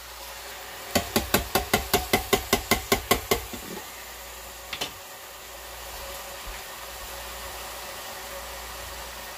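A tin can of tomato sauce tapped repeatedly against a stainless steel pot to shake out the last of the sauce: a quick, even run of about a dozen knocks, about five a second, fading out, then one more light knock a little later.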